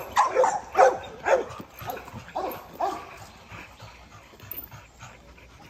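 Pit bull-type dog barking repeatedly, about two barks a second, the barks growing fainter after about three seconds.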